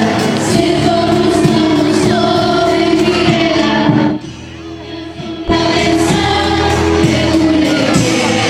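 Music with singing, likely several voices together. Just past the middle the sound drops away for about a second and a half, leaving only a low part, then comes back in full.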